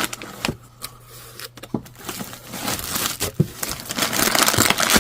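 Packaging being handled while unpacking: a few light taps and clicks, then crinkling and rustling that builds from about two seconds in and is loudest near the end.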